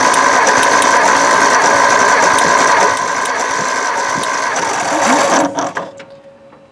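Starter motor cranking the 1960 Edsel Ranger's six-cylinder engine over, with a compression gauge in cylinder six; it spins steadily for about five and a half seconds, then stops. That cylinder reads about 120 psi.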